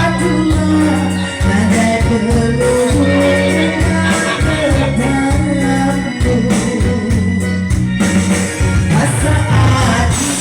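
Band music with a steady, repeating bass line and sustained keyboard notes, with singing.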